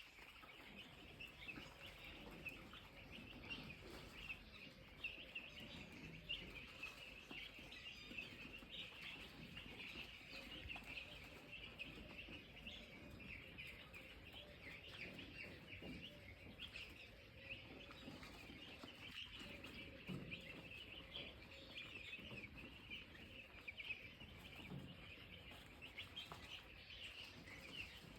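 A large flock of broiler chicks peeping, many short high calls overlapping without a break.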